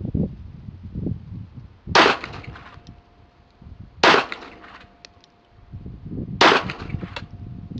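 Wiener Fabrik Little Tom .32 ACP semi-automatic pistol fired three times, single shots about two seconds apart. Each shot is a sharp crack followed by a few fainter ticks.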